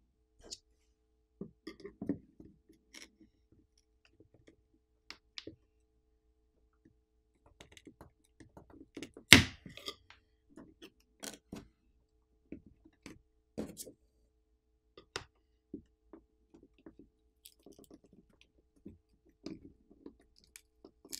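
Scattered small clicks and taps of pry tools working a smartphone's adhesive-held battery loose from the frame, with one much louder sharp knock about nine seconds in.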